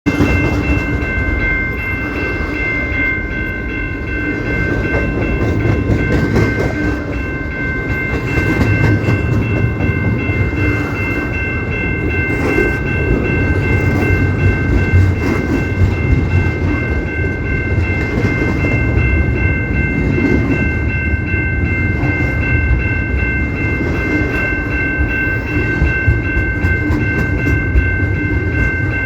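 Canadian Pacific train running with a heavy low rumble, over which a steady chord of several high tones sounds without a break.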